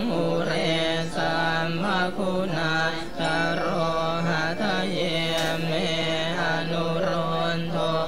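Pali Buddhist chanting in Thai style: a melodic chanting voice over a steady low drone.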